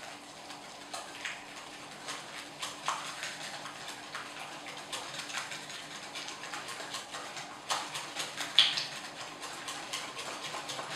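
A utensil hand-mixing a thick wine batter in a glass bowl, clicking and tapping against the glass in quick irregular strokes, with one sharper clink about eight and a half seconds in.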